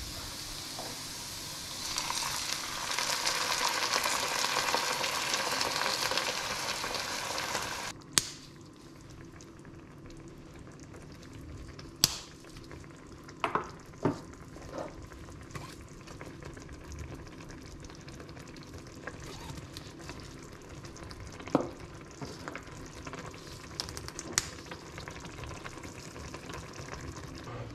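Onions and canned tomato frying in a pan, a loud steady sizzle for several seconds that cuts off abruptly to a quieter simmer. Scattered sharp clicks and knocks follow from spice jars and the spatula.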